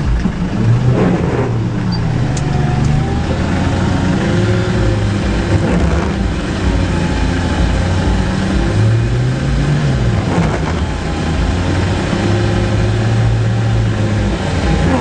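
Engine of a 4x4 pickup truck revving up and down as it struggles through deep mud, the pitch rising and falling several times.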